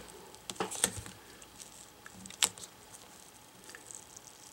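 Adhesive tape being peeled up from a laptop screen's display cable connector by fingertips: faint crinkling with a few small sharp ticks, the loudest about two and a half seconds in.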